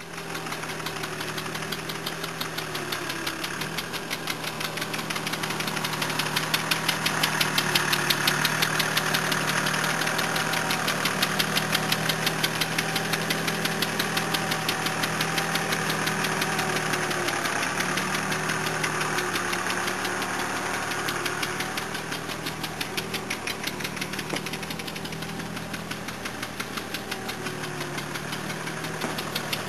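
An engine running steadily with a rapid, regular knock and a low hum whose pitch wavers slightly now and then. It is loudest a few seconds in.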